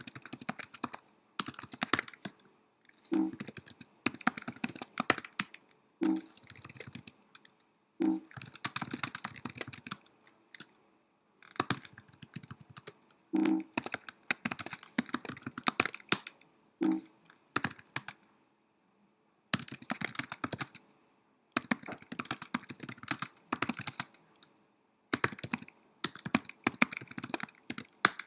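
Typing on a Mac laptop keyboard: fast runs of key clicks a second or two long, broken by short pauses, with an occasional heavier, lower key thump.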